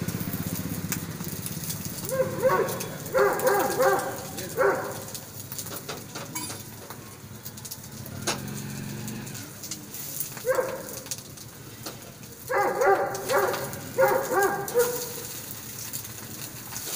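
Short pitched animal calls in two bouts, about two seconds in and again from about ten seconds, over a low steady hum and light clinks.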